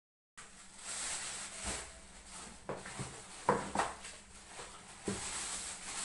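Plastic packaging rustling and crinkling while parts are lifted out of a cardboard box, broken by several sharp knocks of items being handled and set down. The sound starts abruptly just after a moment of silence.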